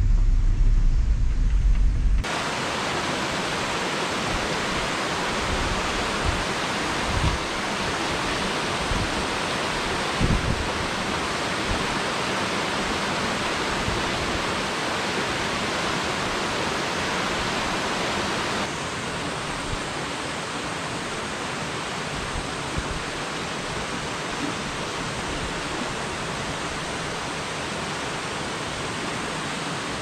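Mountain stream water rushing in a steady, even hiss. It starts abruptly about two seconds in, cutting off a low car rumble, and drops slightly in level about two-thirds of the way through.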